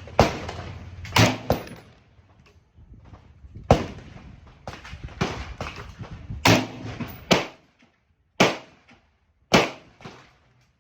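Springfield Saint 5.56 AR pistol fired in slow single shots: about eight sharp reports, a second or two apart, each trailing off in a short echo.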